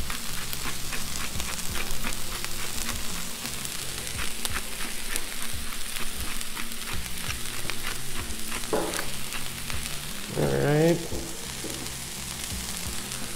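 Vegetables and rice sizzling with a steady crackle on a hot Blackstone flat-top griddle.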